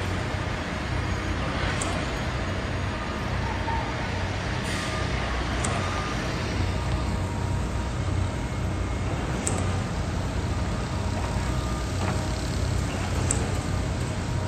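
Steady city traffic noise: a low rumble of vehicle engines and tyres, with brief faint high tones and a few sharp clicks.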